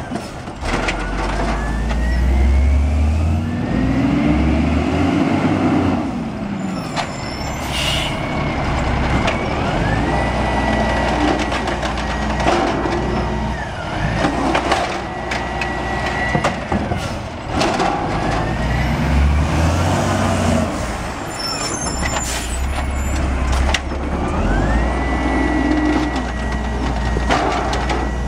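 Automated side-loading garbage trucks dumping carts: the diesel engine revs up each cycle to drive the hydraulic arm, with a rising hydraulic whine as the arm lifts, and loud bangs as carts are slammed against the hopper to shake the trash out. An air hiss comes about eight seconds in.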